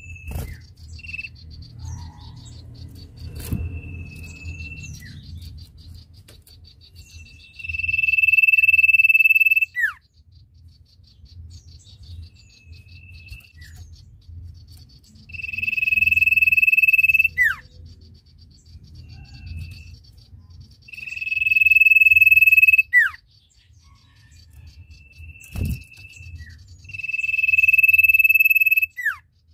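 Common iora in full song: four long, loud, steady high whistles, each about two seconds and ending in a quick falling slur, with shorter, softer notes at the same pitch in between. These drawn-out notes are the 'ngesir' that keepers value in a sirtu.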